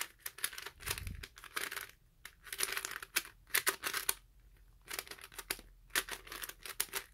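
A LEGO-brick 3x3 puzzle cube being turned fast during a speedsolve: plastic layers clicking and clacking in irregular bursts, with short pauses and a longer one about halfway through. It is a stiff cube that doesn't turn well.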